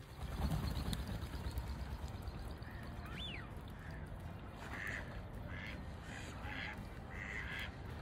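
Mallard ducks quacking: a quick run of about six short quacks in the last three seconds, after a single high rising-and-falling whistled call about three seconds in.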